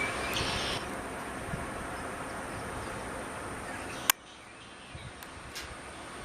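Steady outdoor background rush with a few short bird chirps near the start; a sharp click about four seconds in, after which it is quieter.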